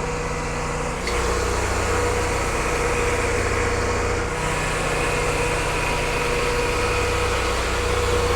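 Grain truck's engine running steadily, a low drone with a steady whine over it. The sound shifts abruptly about a second in and again about four seconds in.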